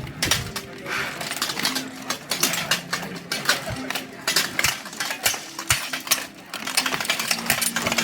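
Blunted steel weapons clashing against each other and striking steel armour in rapid, irregular blows during a full-contact armoured duel.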